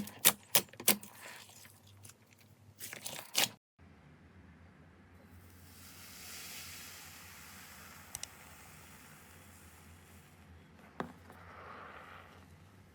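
Slime being handled for ASMR: a fast run of sharp crackling clicks, with another short cluster about three seconds in, then after a brief break a quieter soft rustling, squishing hiss with a few light taps.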